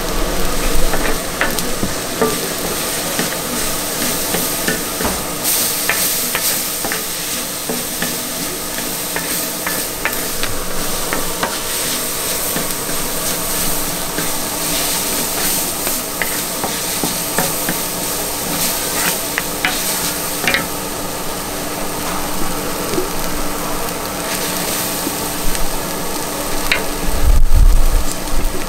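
Food sizzling on a hot griddle, with frequent clicks and scrapes of metal spatulas stirring and turning it. A low rumble comes near the end.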